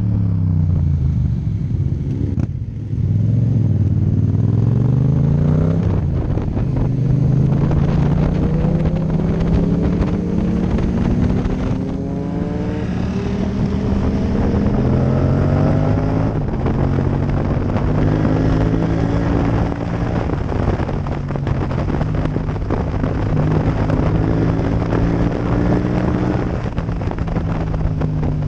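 Yamaha MT-07's 689 cc parallel-twin engine heard from on board, slowing at first and then accelerating through the gears: its pitch climbs and drops back at each of several upshifts. Wind rush over the microphone rises as speed builds.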